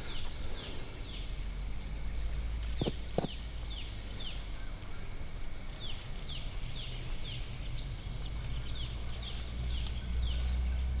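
Rainforest wildlife chorus: short falling chirps repeat two or three times a second over a steady high buzz, with a low steady rumble underneath.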